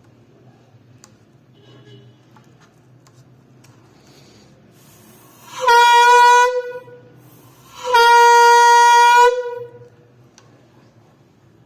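Homemade horn blown in two blasts, the first about a second long and the second about a second and a half, each one steady, loud, buzzy note.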